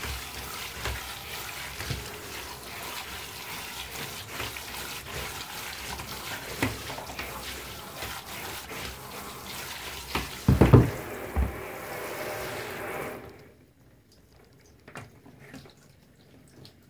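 Tap water spraying and splashing over the brush roll of a Kirby rug renovator attachment in a sink, with scattered knocks and two loud knocks about ten and a half seconds in. The water cuts off about thirteen seconds in, leaving only a few faint drips and taps.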